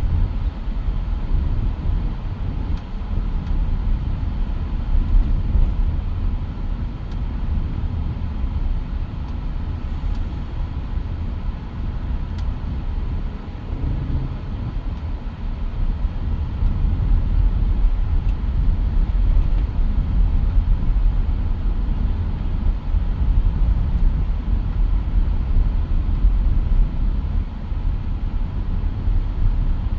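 Steady low rumble of a Mitsubishi Pajero Sport being driven, engine and road noise heard inside the cabin.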